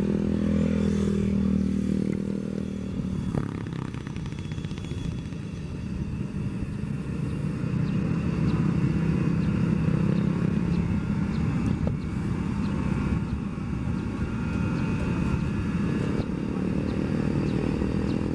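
Electric high-speed inspection train rolling past slowly under its own power, its pantograph on the overhead wire: a steady low rumble from the wheels and running gear, with a few faint clicks.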